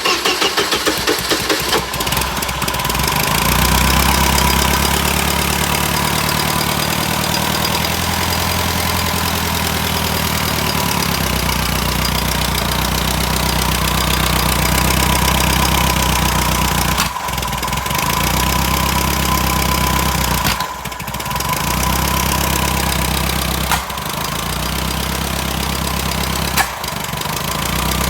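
Freshly rebuilt engine of a 1978 Bobcat 632 skid steer starting up. It fires unevenly for about two seconds, then settles into steady running, coughing, with a few brief stumbles later on.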